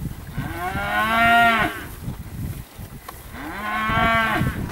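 Newly weaned Angus calves bawling: two long moos, each rising and then falling in pitch, the first about a second and a half long, the second starting about halfway through and a little shorter.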